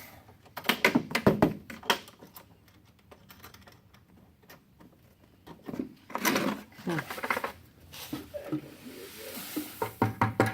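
Clusters of clattering knocks and rattles from a homemade hemp seed-cleaning machine being handled as a door on it is opened, with quiet gaps between.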